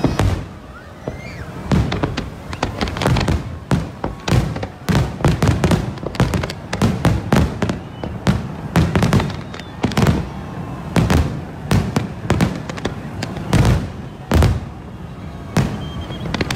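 Fireworks display bursting in a rapid, irregular barrage of sharp bangs, several a second, with short lulls near the start and near the end.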